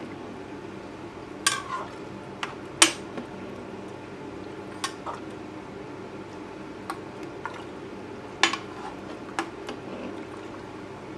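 A metal spatula stirring a watery mutton curry in an aluminium pressure-cooker pot. It scrapes through the gravy and knocks against the pot in sharp clanks every second or few, the loudest about three seconds in, over a steady low hum.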